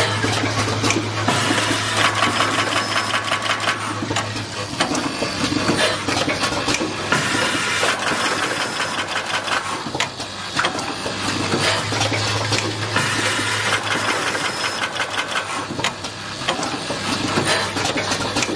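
Automatic terminal crimping and housing-inserting machine running: a fast, continuous mechanical clatter of rapid ticks over a steady low hum.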